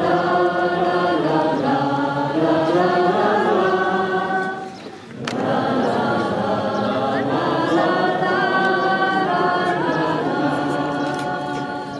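Choir singing two long held phrases, with a brief break about five seconds in; the second phrase trails off near the end.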